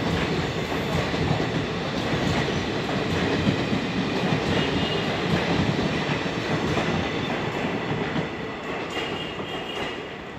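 Train running on the track: a steady rumble of wheels on rails that eases off slightly near the end.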